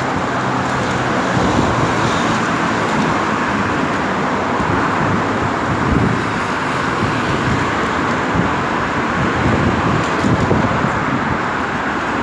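Steady road traffic of cars driving past on a city street, with wind rumbling on the microphone.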